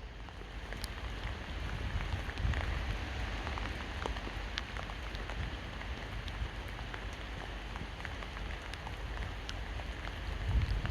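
Steady rain falling, an even hiss with scattered individual drops ticking sharply close by, over a low rumble.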